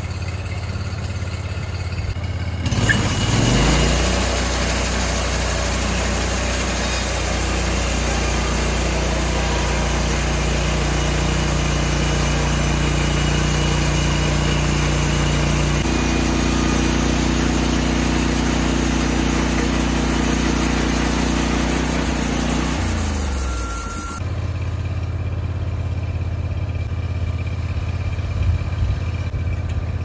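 EZ Boardwalk 40 portable band sawmill: its gas engine idles, then revs up about three seconds in as the band blade rips a board from a pine log with a steady high hiss. The engine drops back to idle and the hiss stops about three-quarters of the way through.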